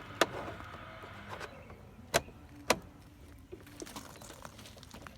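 Sharp knocks and clicks from a towing mirror being fitted and wedged onto its mount. The loudest comes just after the start, then two more about half a second apart a little over two seconds in, with lighter taps between them.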